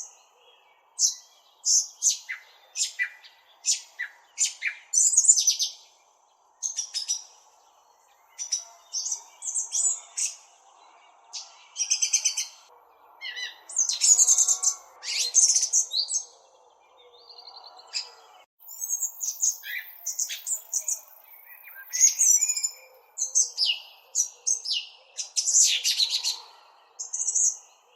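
Small songbirds chirping close up: quick, high chirps in irregular bursts separated by brief pauses.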